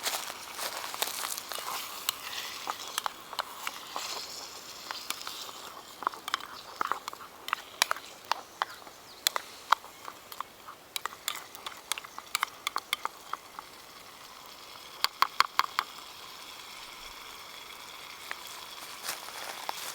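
Food sizzling in oil in a pan over a wood fire, with many irregular sharp crackles and pops; a quick run of pops comes about fifteen seconds in.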